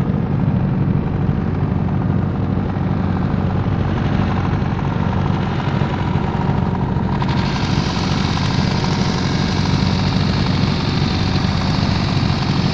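Boat engine running steadily with a low droning hum. A brighter rushing hiss joins it about seven seconds in.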